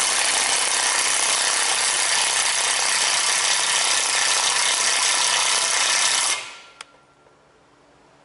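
Cordless impact wrench hammering steadily as it drives the press bolt of a bushing installer, pressing a rear upper control arm bushing into a Ford 8.8 axle housing. It cuts off sharply after about six seconds, and a single metal click follows.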